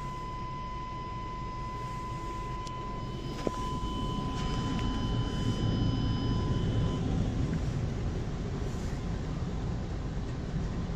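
Automatic car wash spraying water and working its brushes over the car, heard from inside the cabin as a steady rushing noise that grows louder about four seconds in. A steady high electronic tone sounds over it and stops about seven seconds in.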